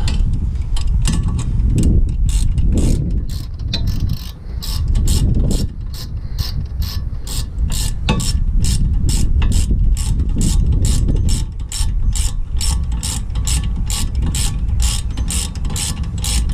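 Half-inch drive ratchet clicking in quick strokes while tightening the bolts of a rear wheel hub. The clicks grow more regular, to about three a second, over a low rumble.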